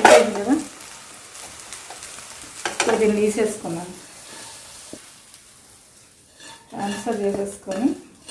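Soya chunks frying in oil in a pan, stirred and scraped with a metal spatula, with a sharp clatter at the start. Later the chunks are tipped and scraped out of the pan onto a steel plate.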